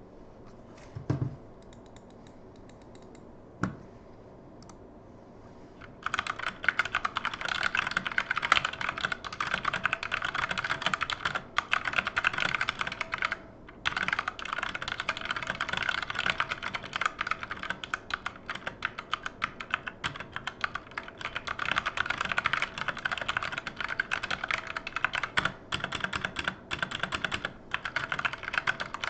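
Redragon K530 mechanical keyboard being typed on fast and continuously, its keys fitted with what the owner believes are Redragon Red linear switches. Two short low thumps come first, and the typing starts about six seconds in, with a brief pause midway.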